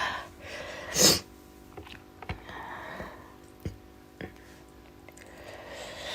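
A person eating: soft breaths and small mouth and hand noises, with one short, sharp noise about a second in.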